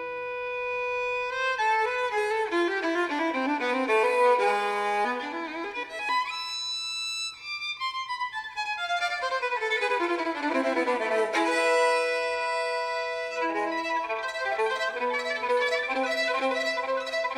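Background music led by a violin playing quick runs of notes that climb and fall.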